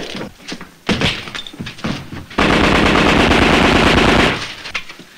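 A few single pistol shots about a second apart, then a sustained burst of Thompson submachine-gun fire lasting about two seconds, starting a little before halfway and cutting off near the end.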